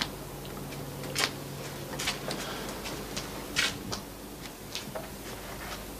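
A few irregular sharp knocks and scuffs about a second apart, over a faint low hum that fades out about two seconds in.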